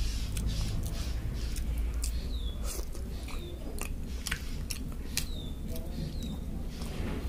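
A person chewing instant noodles and boiled egg close to the microphone: irregular wet mouth clicks and smacks, several a second, over a steady low hum.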